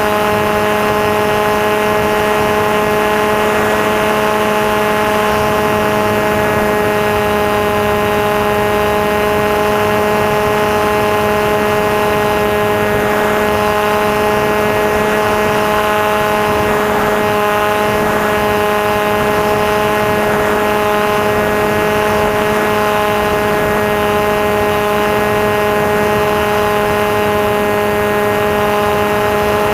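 Electric motor and propeller of a Maxi Swift RC flying wing running at steady throttle: a constant whine made of several steady tones over a rushing hiss, with no change in pitch.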